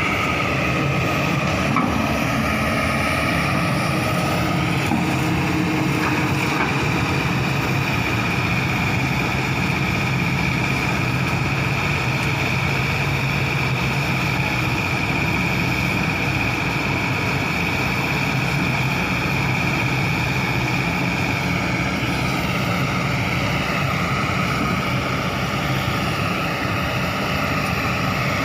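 Hydraulic excavator's diesel engine running steadily, with a high steady whine over the engine hum that shifts in pitch about twenty-two seconds in.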